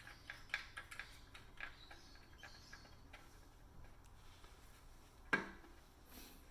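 Small metal clicks and taps from handling a tubeless valve and its lock nut on a bicycle rim, bunched in the first couple of seconds, then one sharp, louder knock about five seconds in.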